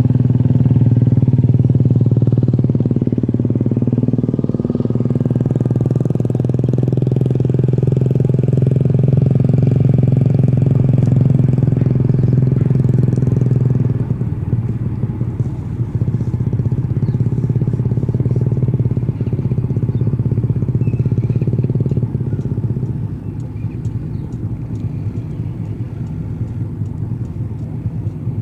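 Passenger ferry's engines running with a steady low drone that drops in level about halfway through and again near the end.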